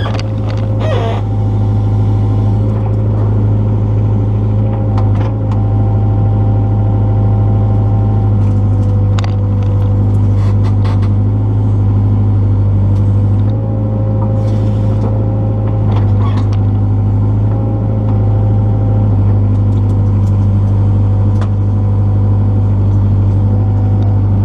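Excavator's diesel engine running under steady load with a low, constant drone, its overtones shifting a few times as the hydraulics are worked. Scattered short clanks and cracks sound over it.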